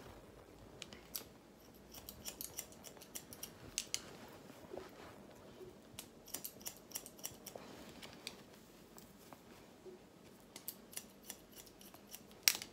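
Hairdressing scissors snipping in quick runs of short, crisp clicks with pauses between, point cutting the ends of the hair; the loudest snip comes near the end.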